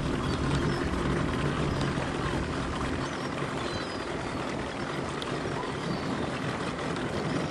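Fishing boat's engine running steadily under a constant rush of water and wind. Its low hum drops away about three seconds in. Faint seagull calls come through now and then.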